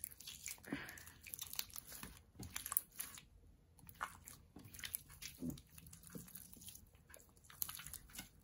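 Neon pink slime, stiffened with clear glue, being squeezed, stretched and pressed by hand: soft squishes and irregular small crackles and pops as air pockets in the thick slime burst.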